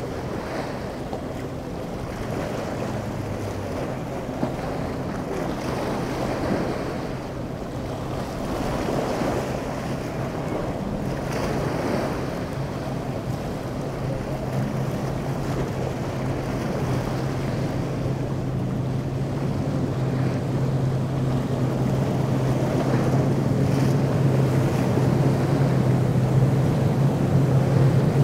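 Boat engines running at low speed, a steady hum that grows louder through the second half, over the wash of choppy water and wind buffeting the microphone.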